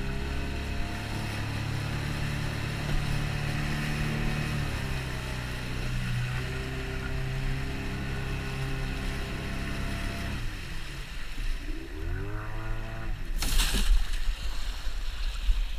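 A 15 hp outboard motor pushing a canoe, running steadily at speed, then throttled back about ten seconds in, its pitch falling as the boat slows. A short, loud burst of noise comes near the end as the canoe reaches the sandy shore.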